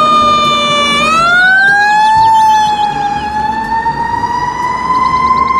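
Fire truck siren wailing. Its pitch dips about a second in and then climbs slowly.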